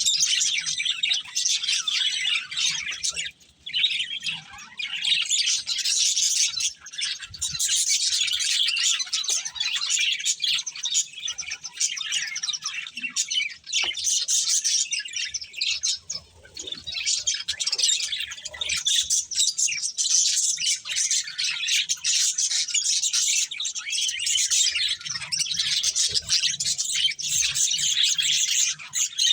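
Budgerigars chirping and chattering in a rapid, near-continuous stream of high chirps, breaking off briefly twice.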